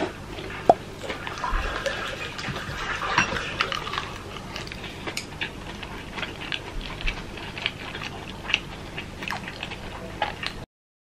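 Close-up eating sounds: wet chewing and mouth clicks with many small crackles, as rice wrapped in seaweed is eaten, and a sharp clack of chopsticks about a second in. The sound cuts off suddenly near the end.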